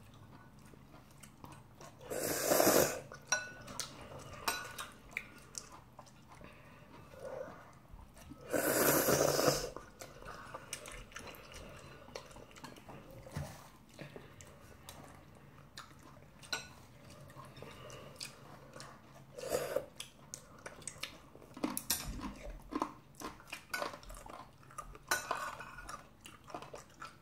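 Eating sounds: instant ramyeon noodles slurped loudly twice, once about two and a half seconds in and again about nine seconds in, with a metal spoon and chopsticks clicking against ceramic bowls and chewing between.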